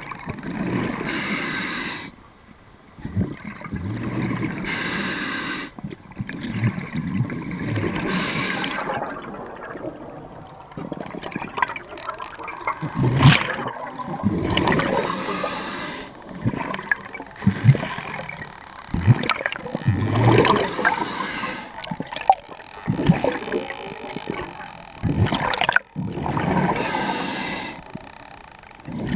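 Scuba diver breathing through a regulator underwater: about six breath cycles a few seconds apart, each a sharp hiss on the inhale followed by a rush of exhaled bubbles.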